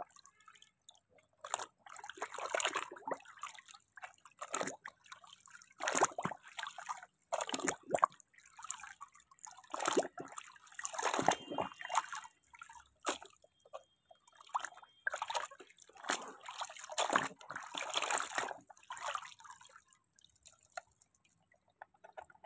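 Muddy water splashing and dripping in irregular bursts as a plastic toy auto rickshaw is swished through it by hand and lifted out to wash it.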